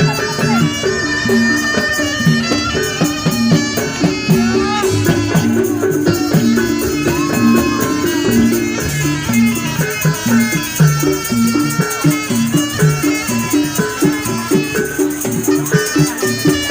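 Jaranan accompaniment music played live: a steady repeating pattern of tuned gamelan percussion with rattles, under a wavering reedy wind melody.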